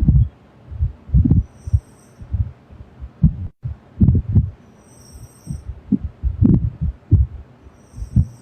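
A girl snoring: low, irregular rumbling pulses, several a second, with a faint high hiss about every three seconds.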